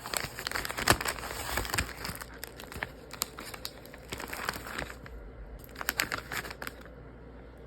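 A mail package being torn open and its wrapping handled, crinkling and tearing in spells, busiest in the first two seconds.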